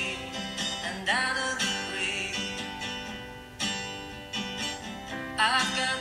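Background music with guitar; a higher melody line slides up into its notes about a second in and again near the end.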